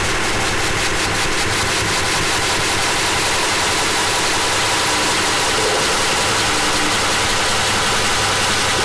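Harsh noise music: a loud, unbroken wall of dense static running from low rumble to high hiss, with a steady low hum under it and no rhythm or pauses.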